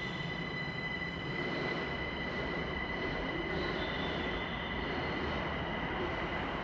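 Linimo HSST maglev train gliding along its elevated guideway: a steady high whine over an even rushing hiss, with no regular wheel clatter.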